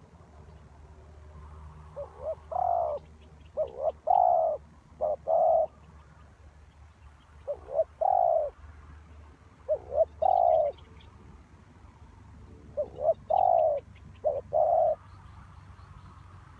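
Spotted dove cooing: repeated low phrases, each a couple of short notes leading into longer coos, with pauses of a second or two between groups.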